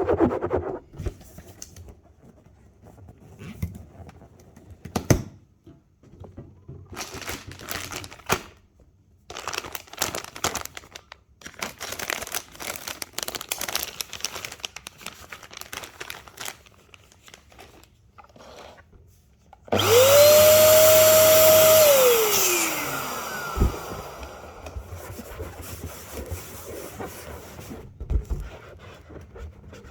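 Scattered rustling and clicking of rubber balloons being handled. About two-thirds of the way through, an electric air pump switches on with a steady whine, runs for about two seconds, then winds down in pitch, leaving a softer hiss.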